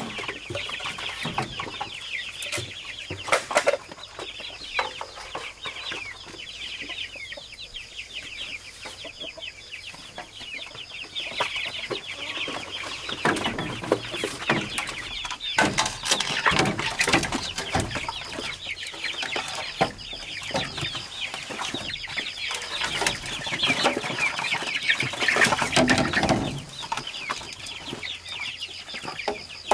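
Chickens clucking and calling continuously, with occasional sharp knocks.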